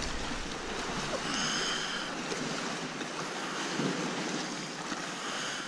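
Steady rushing water noise from an underground lake.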